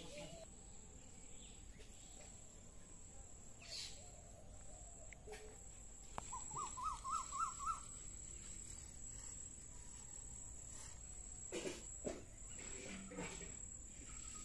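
Quiet outdoor ambience: a steady high-pitched insect drone, with a short warbling bird call about six seconds in that rises and falls five or six times over about a second and a half. A few soft knocks near the end.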